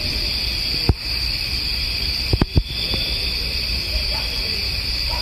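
Steady chorus of night insects such as crickets, with a faint, distant wavering howl late on, a sound its recorder cannot place between a dog and something stranger. Several sharp clicks come about a second in, twice around two and a half seconds, and at the very end.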